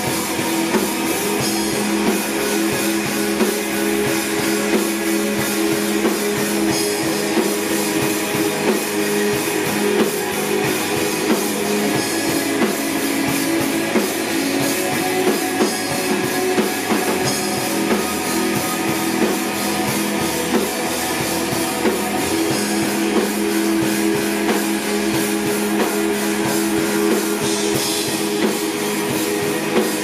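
A live rock band playing: electric guitar, electric bass and drum kit, with a steady, dense sound and drum hits throughout.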